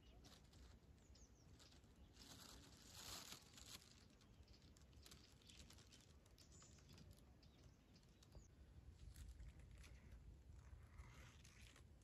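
Near silence, with faint scattered crackling and rustling that gathers most about two to four seconds in and again near the end.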